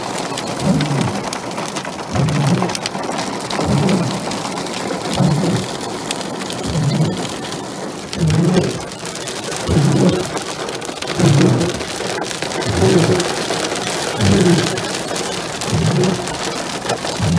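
Heavy hail pelting a car's roof and glass, a dense patter of small hits. Over it the windshield wipers sweep, with a low pulse about every second and a half.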